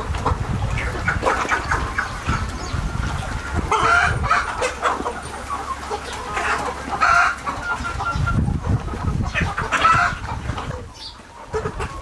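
A flock of desi (Indian country) hens and roosters clucking and calling, many short overlapping calls with louder clusters here and there, over a low rumble.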